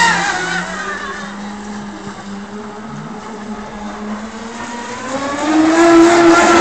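Electric RC racing catamaran's E-MAX BL5345/8 brushless outrunner motor whining at speed. Just after the start the pitch drops and the sound fades as the boat runs away into the distance. From about five seconds in, the whine rises in pitch and grows loud again as the boat comes back.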